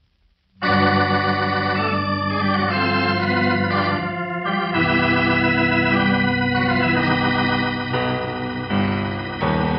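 Organ music: sustained chords coming in about half a second in and moving to new chords several times, a radio-drama organ interlude bridging the mid-programme break.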